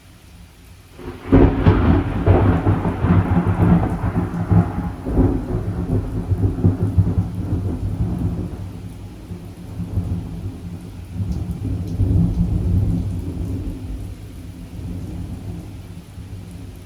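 A clap of thunder breaks suddenly about a second in over steady rain, then rolls on as a long low rumble that fades, swells once more later and dies away.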